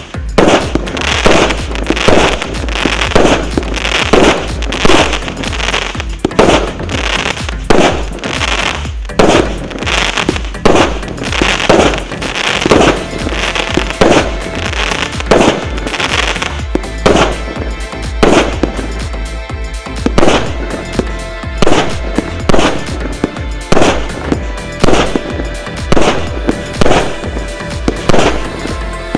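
A 120-shot, 0.8-inch consumer fireworks cake firing, one bang about every second, evenly spaced, with music playing underneath.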